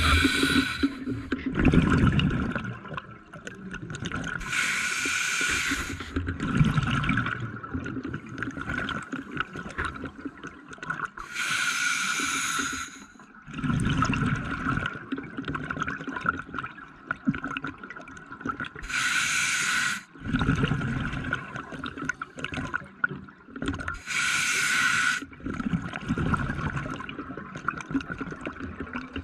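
A scuba diver breathing underwater through a regulator in a slow, even cycle: a hiss with each inhale, then a low bubbling rush of exhaust bubbles with each exhale, about five breaths.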